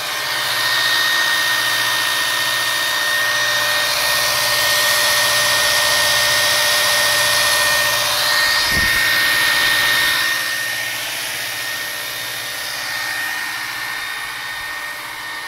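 Electric drill running steadily as it drives a small drill-powered pump, circulating coolant through an electric drive unit for a leak test; a steady motor whine over a loud rushing noise, easing a little after about ten seconds. A brief low knock near the middle.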